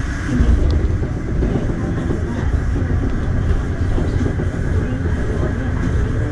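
Daegu Metro Line 3 straddle-beam monorail train running at speed, heard from inside the car: a steady low rumble of its rubber-tyred running gear on the elevated guideway, with a faint motor hum.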